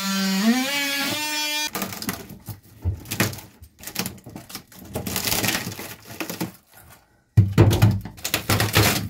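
A short pitched tone rising in steps for the first couple of seconds, then hands and a scraper scraping and picking rotten plywood debris out of the bottom of a sailboat's floor locker: irregular scraping, crumbling and knocking, louder during the last couple of seconds.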